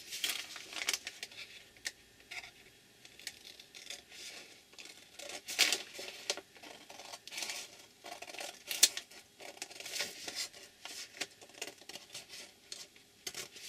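Scissors cutting paper in a series of irregular snips, with a few louder cuts in the middle.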